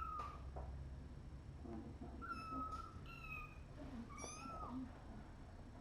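Young kittens, about three weeks old, mewing: about four short, high-pitched cries, near the start, twice between two and three seconds in, and once just after four seconds.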